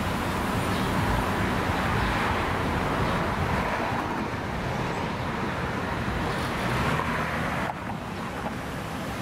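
City street traffic: a steady wash of tyre and engine noise from cars passing one after another, easing slightly near the end.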